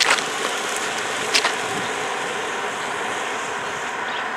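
Steady outdoor hiss with no clear pitch, broken by two sharp clicks, one at the very start and another about a second and a half in.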